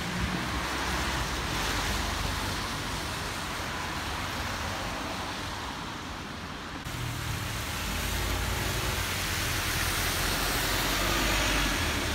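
Steady road traffic noise: a broad hiss over a low rumble, with no distinct events. The sound changes abruptly about seven seconds in.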